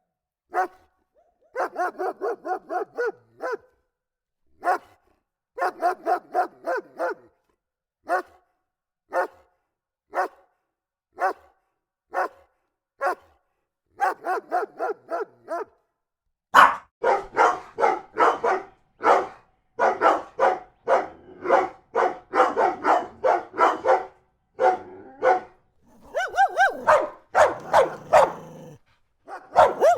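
Dog barking: quick runs of barks broken by single barks, with dead silence between them. About halfway through the barking gets louder and nearly continuous.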